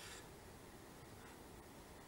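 Near silence: a faint, even hiss.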